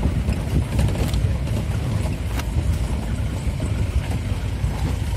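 Open safari jeep driving along a jungle dirt track: a steady low engine and road rumble, with a few short knocks and rattles from the vehicle jolting.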